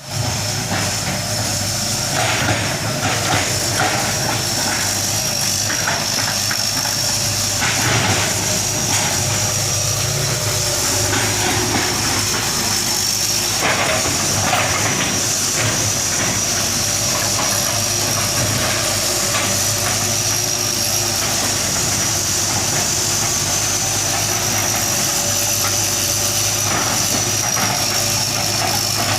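Hitachi hydraulic excavator's diesel engine running steadily, with a steady high-pitched whine over it and scattered clanks and scrapes as it works.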